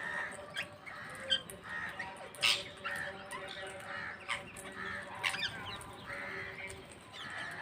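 Parrots calling on a terrace: many short, harsh squawks and chatter overlapping, with a sharp click about two and a half seconds in.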